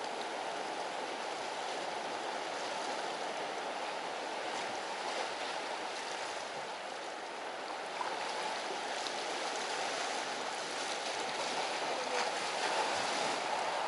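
Sea waves washing steadily against the tetrapods and rocks at the foot of a breakwater, a continuous surf wash.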